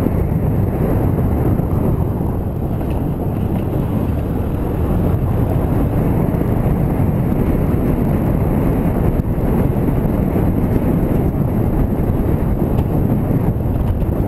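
Motorcycle running along a street, with wind noise from the rushing air on the microphone.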